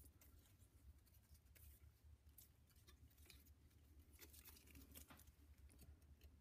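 Near silence: faint clicks and scrapes of a steel feeler gauge being handled and tried in a piston's oil-ring groove to check ring side clearance, over a steady low hum.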